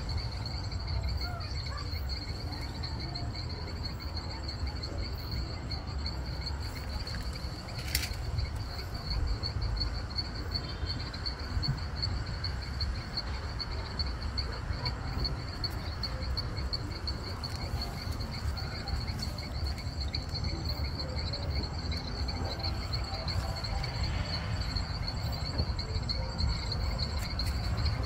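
Insects trilling steadily at one high pitch over a constant low rumble, with a single sharp click about eight seconds in.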